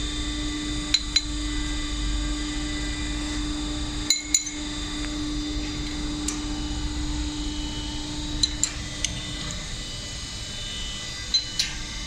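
Steel tooling parts of a self-clinching fastener insertion press clinking as they are handled and fitted by hand: about ten short, sharp metallic clinks, several in quick pairs. A steady machine hum runs underneath and stops about three-quarters of the way through.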